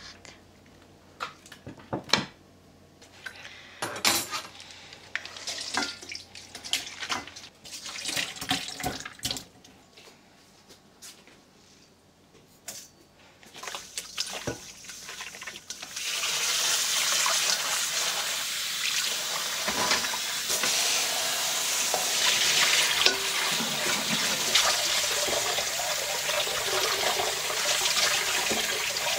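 Scattered clicks and knocks of kitchen handling, then, a little past halfway, a kitchen tap starts running steadily onto raw oysters in a stainless-steel colander in the sink as hands rub them clean.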